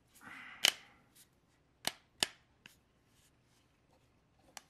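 Hard plastic flashlight holster and clip being handled: a short scraping rustle, then several sharp clicks of the parts knocking and snapping against each other and the countertop.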